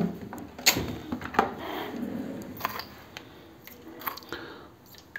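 A teaspoon scooping citric acid crystals from a small jar, with several sharp clicks and clinks against the jar and a low scraping in between.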